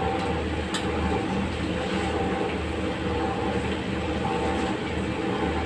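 Gas range burner running under a wok of curry: a steady rumble with a low, uneven throb, while a ladle stirs the pan. There is one light clink of the ladle against the wok under a second in.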